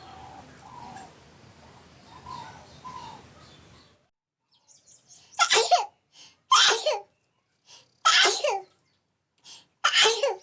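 A person sneezing four times in a row, starting about five seconds in. Most sneezes have a short catch of breath just before. Before the sneezes there is only faint background noise.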